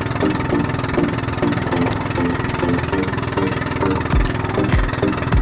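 Small outrigger fishing boat's engine running steadily under way. A few low thumps come in near the end.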